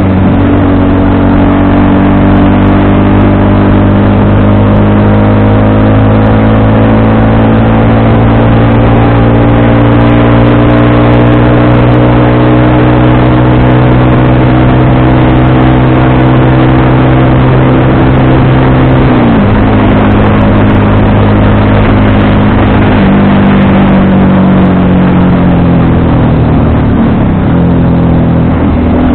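FKM Victorino 250i V-twin motorcycle engine running under way, its note climbing slowly with speed, then dropping suddenly about two-thirds of the way through before steadying again.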